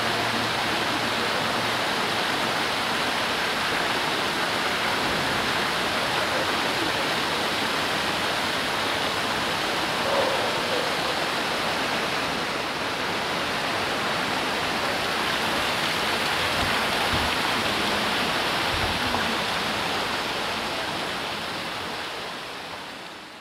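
Fountain of the Four Rivers: water pouring and splashing steadily into its basin, fading out at the end.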